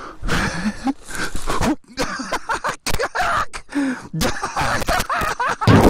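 A man panting and grunting with effort while scrambling up a steep, rough concrete embankment, his shoes scuffing and scraping on the concrete, with a loud thump near the end.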